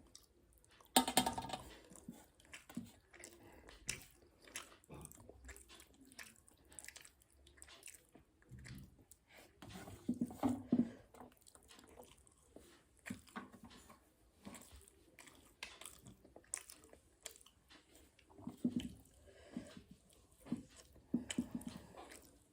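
Close-up chewing and biting of a home-cooked rice-and-curry meal: a steady run of small wet mouth clicks, with a few louder bursts of bites scattered through.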